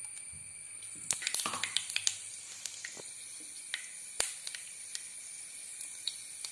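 Mustard seeds in hot sunflower oil in a frying pan, sizzling and crackling: a quick flurry of sharp pops about a second in, then single pops every half second or so as the seeds start to splutter.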